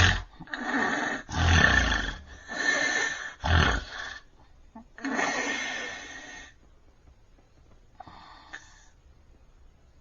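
A sleeping man with severe sleep apnea snoring loudly: five rough snores in quick succession, then the breathing goes quiet about six and a half seconds in, with only one faint short sound near the end. The run of heavy snores followed by silence is the pattern of an obstructive apnea, the airway closing and breathing pausing.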